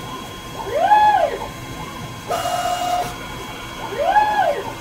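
Dyna Myte DM3000 CNC lathe turning a Teflon part: its axis drive whines. The whine rises and falls in pitch twice, about a second in and near the end, and between them holds a steady pitch for most of a second. The pattern repeats about every three seconds as the tool makes pass after pass.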